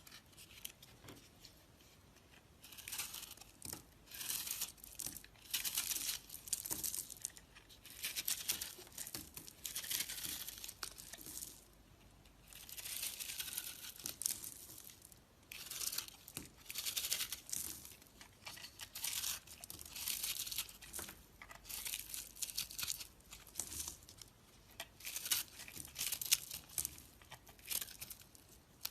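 Dry soap crumbling and crackling in repeated crisp strokes, each about a second long, roughly one a second.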